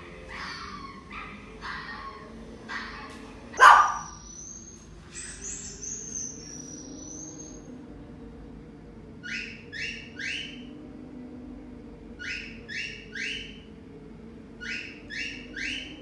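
Animal sound effects played back. Short repeated calls come first, then one loud sharp sound about four seconds in, then bird chirps: a run of high falling chirps followed by three groups of three quick chirps.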